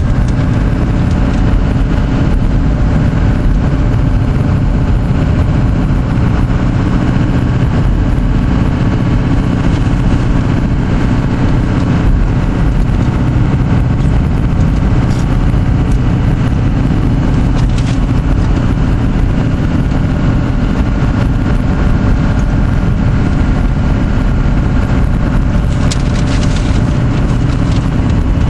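Steady cabin noise of a car driving on a wet road: a low engine and road rumble with tyre noise, heard from inside the car.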